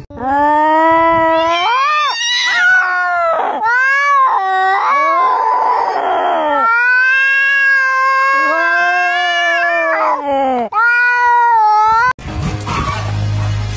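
A tabby cat meowing loudly, a run of about five long, drawn-out yowls that rise and fall in pitch. About twelve seconds in the calls cut off and music starts.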